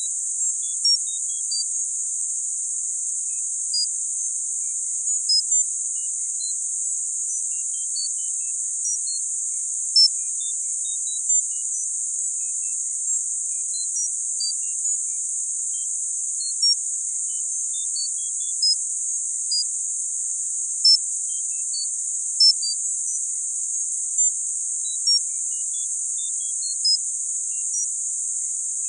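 Tinnitus-masking sound: a steady, high-pitched hiss of filtered noise, with short high pings scattered irregularly over it, some a little louder than others.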